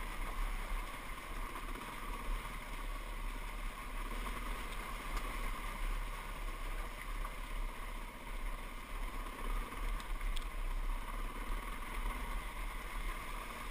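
Dirt bike engine running steadily while the bike is ridden over a rocky trail, with wind noise on the microphone.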